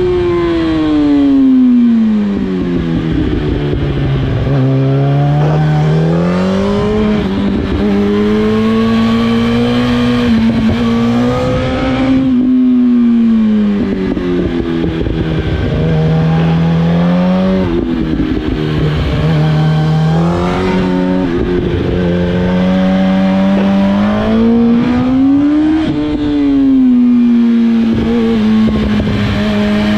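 2007 Yamaha R1's inline-four engine ridden hard, revs climbing and dropping again and again: it falls off into corners, pulls back up, and breaks sharply at gear changes.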